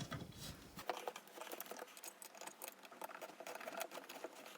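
Faint, rapid light clicks and taps of small assembly hardware and parts being handled, such as an Allen wrench working a bolt in a flat-pack furniture panel.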